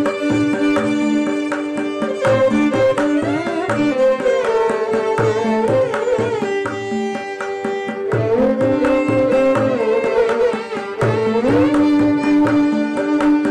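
Two violins playing a melody together in Carnatic style, with sliding ornaments between notes, over a steady rhythm of mridangam drum strokes.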